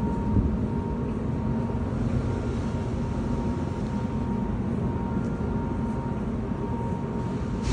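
Steady low rumble of a large factory hall, with a faint steady whine over it and a short click near the end.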